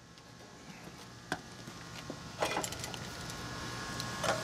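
Metallic clicks and rattles of an outdoor AC disconnect box being handled, its hinged metal cover and pull-out block knocking, in a few separate bursts over a faint steady hum.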